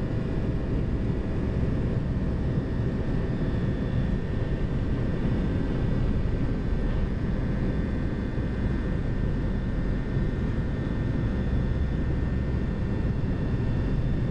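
Boeing 737-200's Pratt & Whitney JT8D turbofan engines at takeoff thrust, heard from inside the cockpit during the takeoff roll. A steady, dense rumble with a thin, steady whine riding above it.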